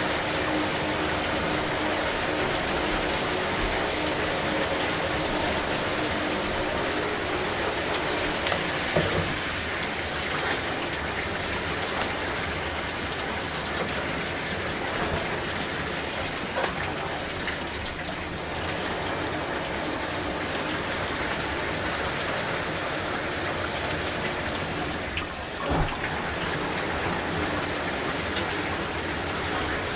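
Shower water spraying steadily and splattering onto a person and the shower floor, with a couple of brief knocks partway through.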